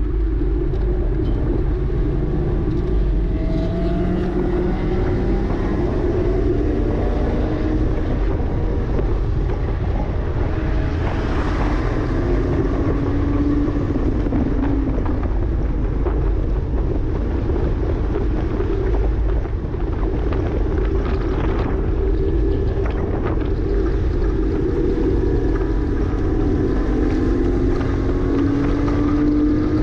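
Porsche Cayman S flat-six engine driven hard on a race track, its pitch climbing again and again through the revs and dropping at each upshift, over a heavy low rumble of wind and road noise.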